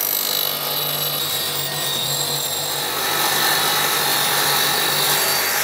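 Table saw cutting through a 5 mm aluminium plate: a steady sawing noise with a faint high whine.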